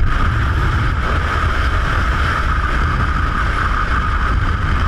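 Strong wind buffeting the microphone with a heavy low rumble, over a steady rushing noise of wind and sea water.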